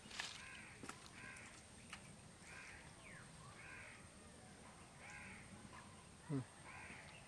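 A crow cawing repeatedly, faint, about one caw a second. A few light clicks, and about six seconds in a short low sound that drops in pitch.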